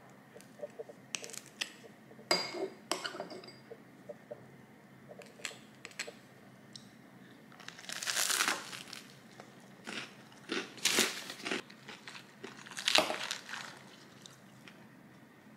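Someone eating: a few light clinks of cutlery on a dish, then several crunchy bites and chewing, the loudest about eight, eleven and thirteen seconds in.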